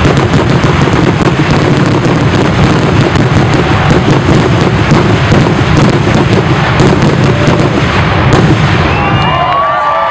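Fireworks finale: a dense, continuous barrage of shell bursts, booms and crackle with a heavy low rumble. About nine seconds in the barrage thins and whistles and cheering begin.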